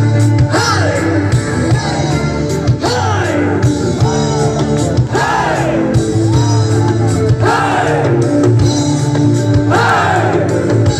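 Live rock band playing loudly through the concert sound system, with singing over the band.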